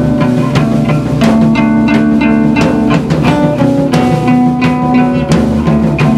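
Live rock band playing unplugged: strummed acoustic guitars over an electric bass guitar and a drum kit keeping a steady beat.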